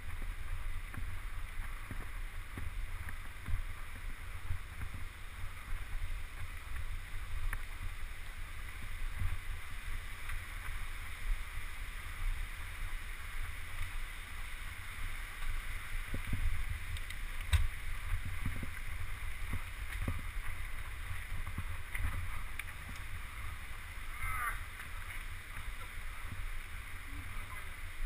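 Mountain bike rolling fast down a dirt forest trail: a steady rumble of wind on the microphone and tyres on the dirt, with scattered knocks and rattles from the bike over bumps. A brief squeal near the end.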